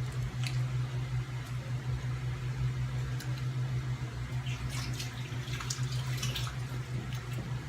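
Wet clicks and smacks of children chewing pizza, scattered irregularly over a steady low hum.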